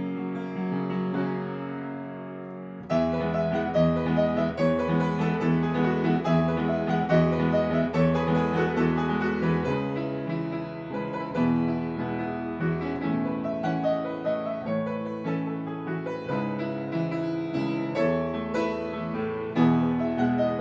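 Piano music, playing a gentle melody; about three seconds in it swells into a fuller, louder passage with deeper bass notes.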